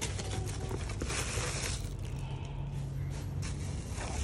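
Plastic bags rustling and scraping as they are handled and pulled from a plastic laundry basket, over a steady low hum. The rustling thins out in the middle and picks up again near the end.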